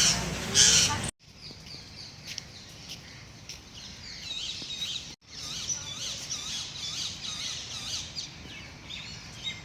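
Many birds chirping and calling together, with short repeated curving notes from several birds at once. Two loud bursts of noise come in the first second, before an abrupt cut.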